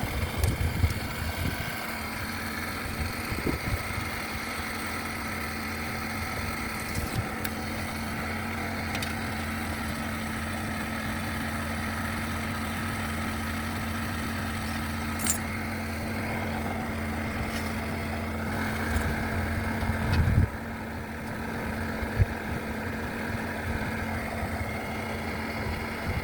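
An engine running steadily at idle with a constant hum. There are a few sharp clicks and knocks, and the low rumble drops away about twenty seconds in.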